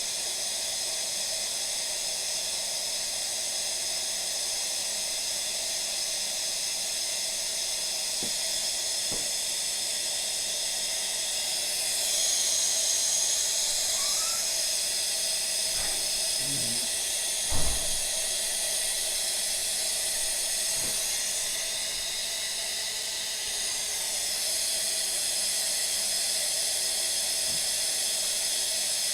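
Steady hiss of air being forced out of a water heater tank as it fills with water, a sign the tank is not yet full. The hiss swells about twelve seconds in and eases again later, and a sharp thump is heard a little past halfway.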